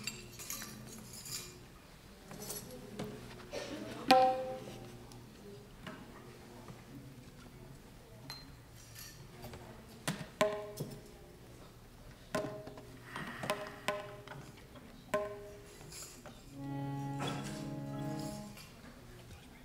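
Harmonium and tabla between pieces: scattered single taps with short ringing notes, then a harmonium chord held for about two seconds near the end.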